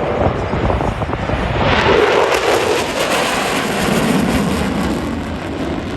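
Thunderbirds F-16 fighter jet flying past, a loud jet engine noise. It swells about two seconds in, and its pitch falls as the jet passes.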